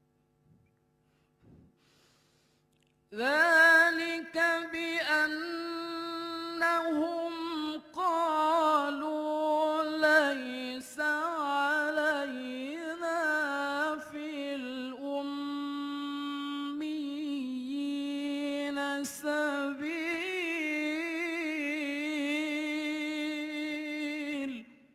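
Male Quran reciter chanting tilawah: one long, ornamented melodic phrase with a wavering, gliding pitch. It begins about three seconds in after near silence, runs for about twenty seconds with a few brief dips, and stops just before the end.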